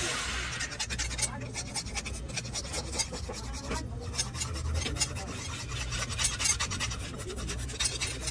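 Flat hand file scraping back and forth along the steel edge of a wooden-handled knife blade, in quick, repeated rasping strokes.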